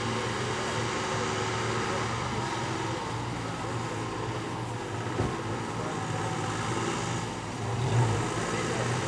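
Small tractor engine running steadily under load as it drives through a flooded paddy, swelling briefly louder a little before the end.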